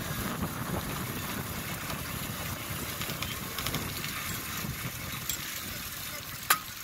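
Bicycle rolling fast on asphalt: wind buffeting the microphone over the hum of the tyres, with one sharp click near the end.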